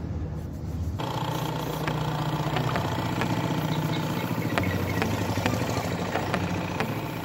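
Air compressor motor kicking in about a second in and running with a steady mechanical hum and light regular ticking.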